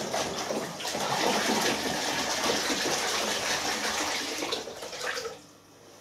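Rinse water sloshing and splashing in the turning drum of a Hoover Dynamic Next DXA610IW3 washing machine during the rinse of a Wool & Silk cycle. The sloshing stops abruptly about five seconds in.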